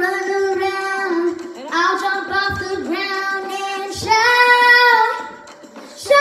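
A young girl singing a children's worship song, "I will run around and I'll jump off the ground and shout", in three phrases with held notes. A loud new note starts just before the end.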